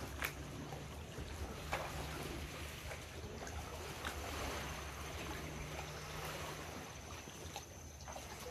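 Water trickling and sloshing around a canoe as it is paddled through calm water, with a few short sharp clicks. A thin steady high insect whine is also present.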